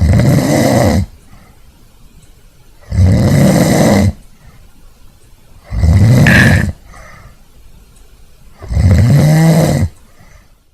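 Loud snoring: four snores about three seconds apart, each lasting about a second.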